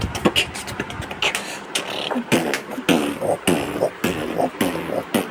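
Human vocal beatboxing: a fast run of mouth-made clicks and hissing snare sounds mixed with short hummed bass notes.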